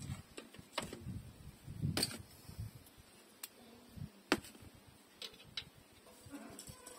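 Scattered sharp metallic clicks, about six of them, as the rear differential's ring gear is worked by hand against the pinion while the gear play (backlash) is being checked and adjusted.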